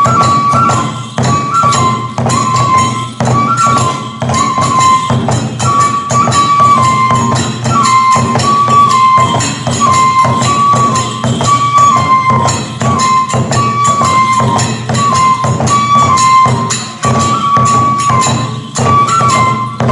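Kagura accompaniment: a transverse bamboo flute repeating a short melody over fast, steady taiko drum beats and jingling hand cymbals.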